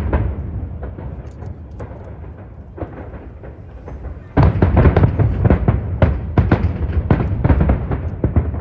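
Aerial fireworks bursting and crackling: a thinner spell of scattered pops, then from about halfway a sudden dense barrage of rapid bangs. A constant low rumble of strong wind on the phone's microphone runs underneath.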